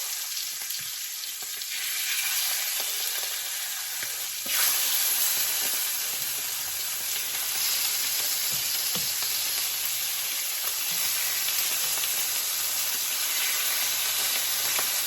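Seasoned chicken pieces sizzling as they fry in coconut oil in a pan, a steady hiss that gets a little louder about four and a half seconds in.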